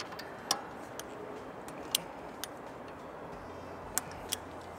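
Click-type torque wrench tightening a wheel-spacer lug nut toward 129 ft-lb: a handful of light, sharp clicks, spread irregularly, as the ratchet works.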